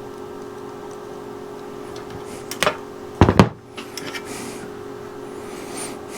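Hand wire strippers working on thin wires: a couple of light clicks, then a sharper double snap a little past the middle as the insulation is pulled off, with soft rustles of wire handling afterward. A steady hum runs underneath.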